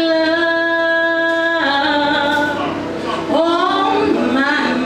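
A woman's voice singing long held notes without clear words: one note held about a second and a half, then sliding down and up into further sustained notes, with the live band playing softly behind.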